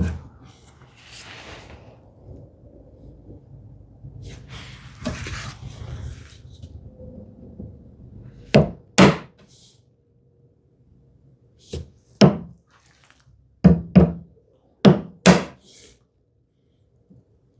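Chisel being struck to chop a brass-hinge mortise in cherry wood: four pairs of sharp taps in the second half, each pair closely spaced. Before them, a few seconds of low scraping and handling noise.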